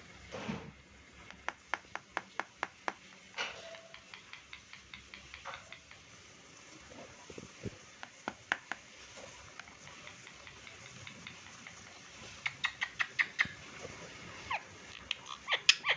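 Indian ringneck parrot making runs of short, sharp clicks and chirps in quick succession, once about a couple of seconds in and again near the end, with scattered single clicks between.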